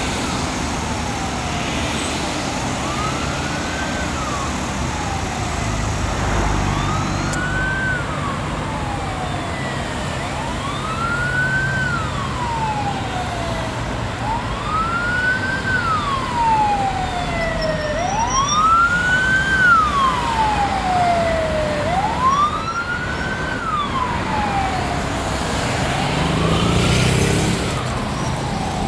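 Fire engine siren wailing in a slow rise and fall, one cycle about every four seconds, over steady road traffic noise. A low engine rumble swells briefly near the end.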